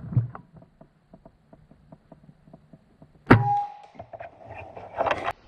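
A single shot from an Air Venturi Avenger .25 caliber regulated PCP air rifle a little over three seconds in: a sudden sharp report with a short ring after it. A second, noisier burst of sound follows near the end.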